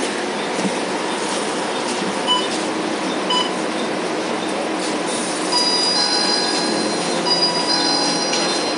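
Cabin noise of a Volvo B9TL double-decker bus under way: a steady rumble of engine and road with a few brief metallic clinks. A high-pitched squeal made of several steady tones sets in a little past halfway.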